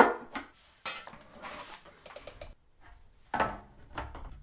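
Clanks and clinks of a steel rear frame loop and tools being handled against a motorcycle frame: a sharp metal knock at the start, scattered rattles, and a second knock about three and a half seconds in.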